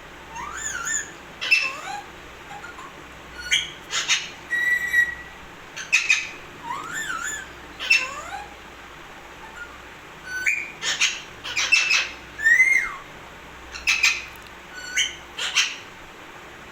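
Pet parrot calling: short sharp squawks mixed with high whistles that slide up and down, in clusters every second or two.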